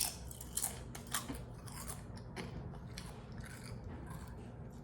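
Cheddar and sour cream chips being bitten and chewed close to the microphone: a string of crisp crunches, the loudest right at the start.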